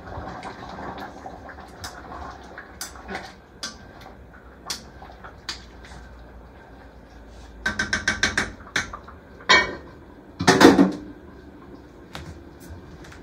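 A spoon clinks against a red enamelled Dutch oven as a simmering dish is stirred, with scattered clicks and then a quick run of about eight clinks in under a second. Near the end the heavy lid clanks back onto the pot, the loudest sound.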